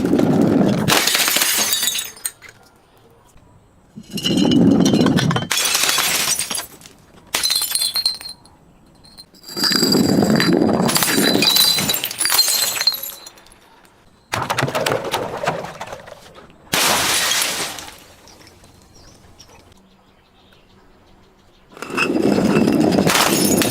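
Glass bottles being broken and crushed, about seven separate bouts of crunching, shattering glass a second or two long, many opening with a low thump, with the tinkle of shards between.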